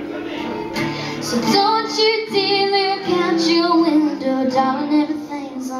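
A female voice singing to a strummed acoustic guitar. The guitar chords carry the start, and the sung melody comes in about a second and a half in.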